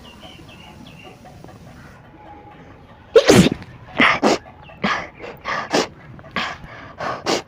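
A person sneezes loudly about three seconds in, the sneeze set off by tickling the nose with a blade of grass. A quick irregular run of shorter sharp bursts follows.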